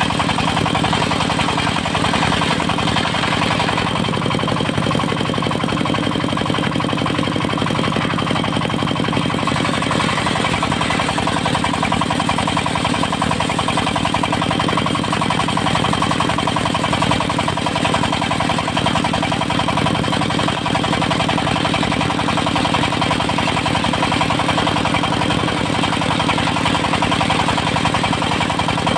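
Diesel engine of a portable circular sawmill running steadily with a fast, even knock.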